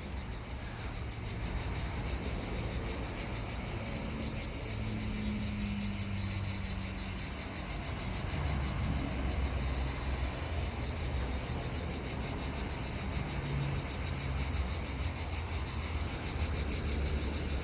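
Steady chorus of insects, a continuous high chirring, over a low steady rumble.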